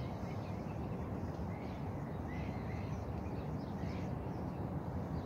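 Outdoor park ambience: a steady low rumble, with several short bird calls scattered through it.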